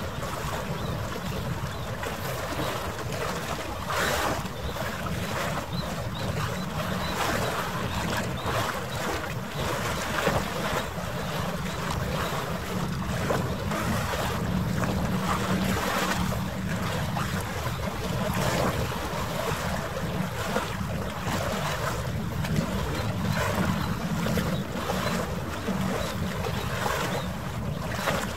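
Wind buffeting the microphone over choppy water, a steady low rumble with many short crackles, played back at almost three times normal speed.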